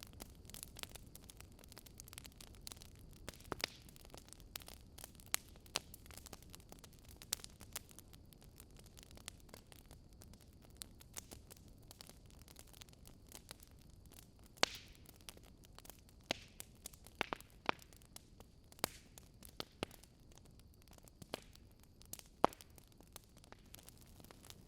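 Wood fire crackling: irregular sharp pops and snaps of burning logs over a faint low hiss and rumble, with a few louder pops in the second half.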